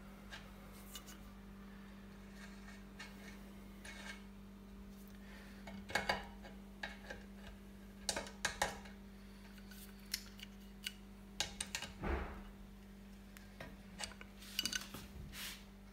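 Steel adjustable spanner clinking and ticking against the 18 mm axle nut of an electric bike's front hub motor as the nut is worked loose: scattered metallic clicks and taps, coming in small clusters about six seconds in, around eight seconds, and again near the end.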